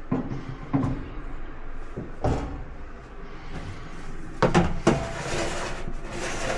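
Knocks and clunks of dryer panels and parts being handled during disassembly: about five separate knocks, two close together a little past the middle, then a scraping rustle near the end.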